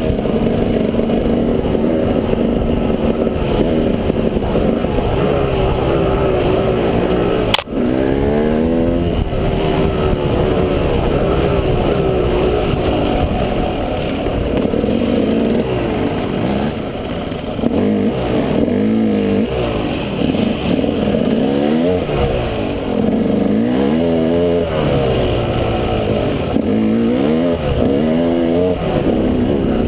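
Engine of an off-road vehicle heard from on board, its pitch rising and falling again and again as it accelerates and eases off over rough ground. There is one sharp knock about seven and a half seconds in.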